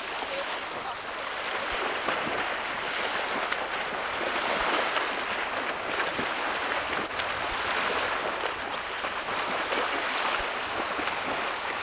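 Lake water splashing from swimmers doing front crawl in the shallows: a steady rushing, crackling noise of churned water that grows a little louder after the first couple of seconds.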